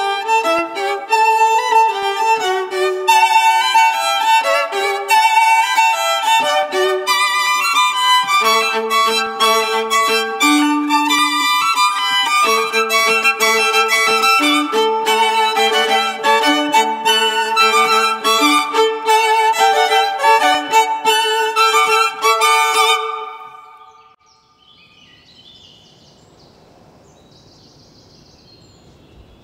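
Solo violin playing a fast joropo in quick, lively notes, the piece ending about 23 seconds in; after it only a faint background noise remains.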